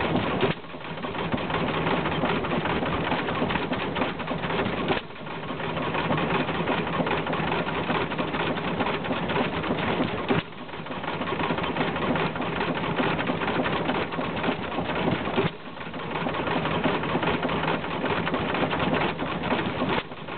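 Bradford open-crank hit-and-miss stationary engine running with a dense, continuous clatter. The level drops suddenly about every five seconds, then builds back up.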